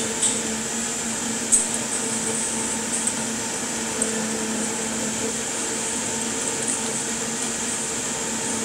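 A steady machine hum with a faint whine runs underneath. A handful of short crisp crackles and taps come from a cleaver cutting through the crispy skin of a roast Peking duck and meeting the wooden board, the sharpest about a second and a half in.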